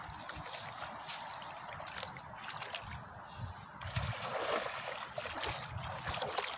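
Feet wading and splashing through shallow river water. About four seconds in a cast net is thrown, and the splashing grows louder and more spattery as the net comes down on the water and the wading goes on.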